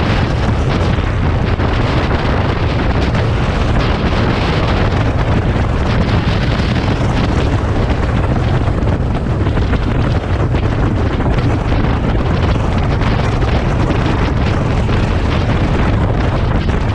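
Wind buffeting the microphone on a touring motorcycle cruising at highway speed. It gives a loud, steady rumble and rush, with the bike's engine and road noise blended into it.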